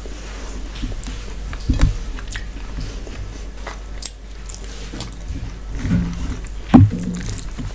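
Close-miked eating sounds: wet squishing as rice and mutton curry are mixed by hand, and chewing, with scattered sharp clicks and a louder thud near the end.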